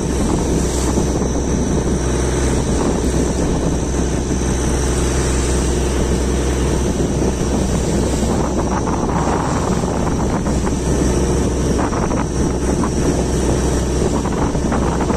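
Boat engine running steadily at speed, a continuous low drone, with wind noise on the microphone.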